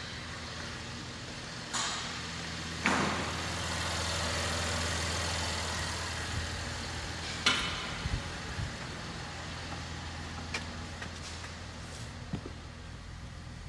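A 2018 Chevy Traverse's 3.6-litre V6 idling steadily, with a low hum that grows louder for a few seconds from about three seconds in. Three sharp knocks are heard over it: two in the first three seconds and one about halfway.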